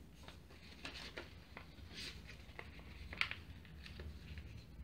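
A sheet of paper being folded and creased by hand on a tabletop: faint, scattered rustles and short crinkles, one a little louder about three seconds in.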